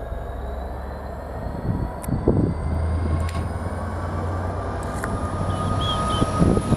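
Class 66 diesel-electric freight locomotive running through the station: a steady low engine hum with a thin whine that rises slowly in pitch.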